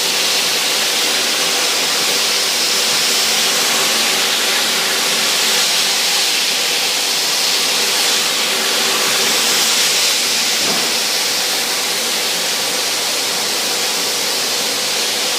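Dust-extraction vacuum and orbital floor sander with a mesh sanding screen running together: a steady, loud rushing hiss under a faint constant hum.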